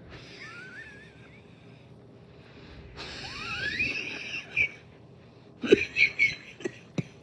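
A person's wheezing breaths: two drawn-in breaths, each with a whistling tone that rises in pitch, the second louder. About six seconds in comes a quick run of short, harsh coughs, the loudest sounds here.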